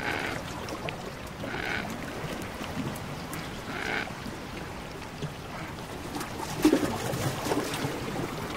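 Antarctic shore water trickling and lapping among floating brash ice, with scattered sharp clicks and crackles and short hissing patches every couple of seconds; one louder low thump about seven seconds in.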